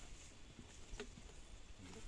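Near silence, with a faint light tap about halfway through.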